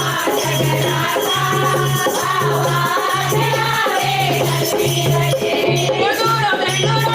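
Devotional kirtan music: a bhajan sung over rattling, jingling hand percussion and a low beat repeating about once a second.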